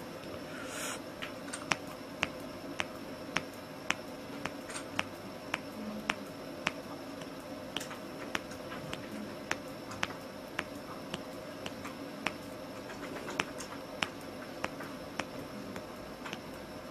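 Middle finger joints being cracked over and over, each a sharp short pop, coming steadily at nearly two a second.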